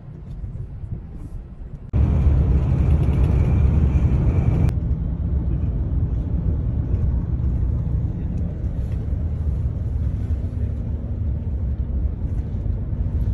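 Low rumble of a moving coach bus heard from inside the cabin: engine and road noise. It jumps suddenly louder about two seconds in and eases back somewhat after about five seconds.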